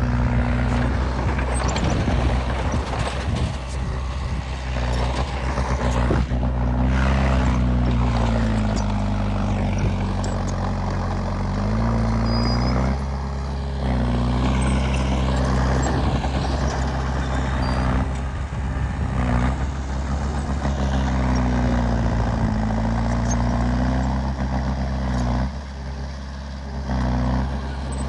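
A heavy diesel engine working hard and continuously, its pitch sagging and climbing back twice as the load and revs change, over a dense mechanical clatter.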